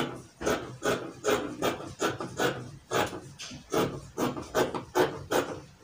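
Tailor's scissors cutting through fabric on a cutting table: a steady run of snips, about two to three a second.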